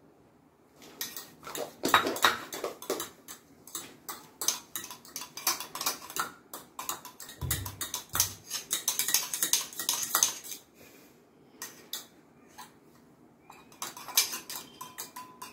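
Fork beating egg in a small stainless steel tumbler, clinking quickly and unevenly against the metal in runs of taps. The clinking thins out after about ten seconds and picks up again near the end, with a dull low bump about halfway through.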